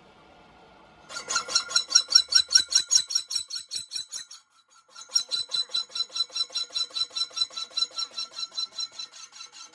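Metal-on-metal squeal from a lathe tool bearing against a spinning steel tractor wheel rim, pulsing evenly about six times a second. It starts about a second in, breaks off briefly about four seconds in, then resumes and fades near the end.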